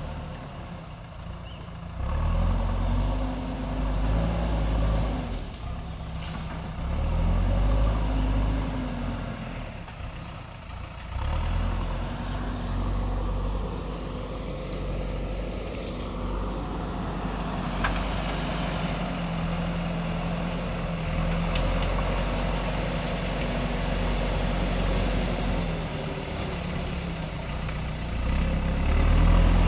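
Diesel engine of a JCB backhoe loader running, revving up and settling back several times as the machine works.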